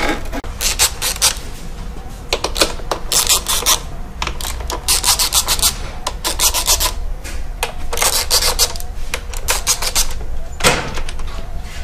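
Repeated short bursts of clicking and scraping from a hand tool working on plastic and metal parts under a sport bike's seat, over a steady low hum.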